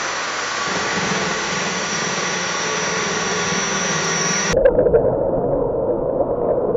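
Comic fart sound effects: a long, steady hissing one, cut off abruptly about four and a half seconds in by a lower, buzzy, wavering one.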